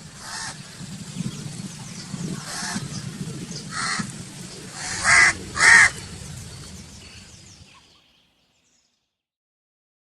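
Crows cawing: five harsh caws spread over the first six seconds, the two loudest close together about five seconds in, over a steady low background rumble.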